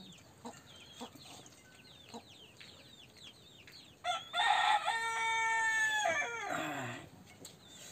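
A rooster crows once about four seconds in, a long call of some three seconds that is held level and then falls away at the end. Before the crow there is a steady run of short, high, falling peeps.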